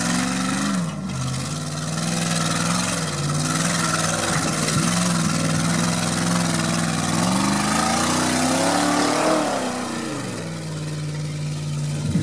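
Land Rover Discovery engine pulling the 4x4 up a rough off-road climb, the revs rising and falling as the driver works the throttle, with one longer climb in revs in the second half before it drops back.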